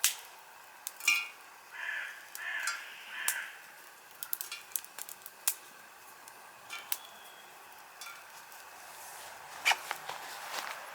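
A bird cawing three times, about two to three and a half seconds in, among scattered sharp clicks and taps.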